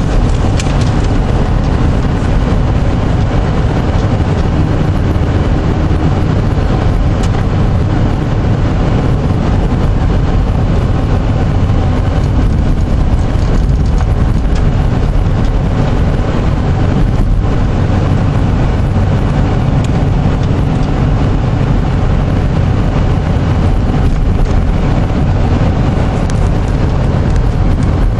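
Steady rumble of a car driving, with engine and tyre noise on a slushy, snow-covered road heard from inside the cabin.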